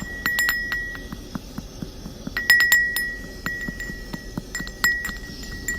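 Kitchenware clinking in several short clusters of sharp strikes, over a steady ringing tone that lingers between them.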